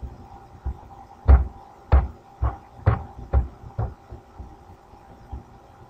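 Computer mouse clicks: a run of about nine short, dull clicks, roughly two a second, over a faint steady hum.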